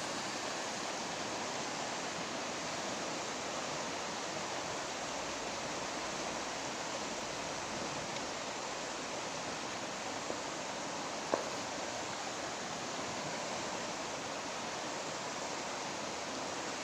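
Steady rush of river water flowing, an even unbroken noise, with a single sharp click about eleven seconds in.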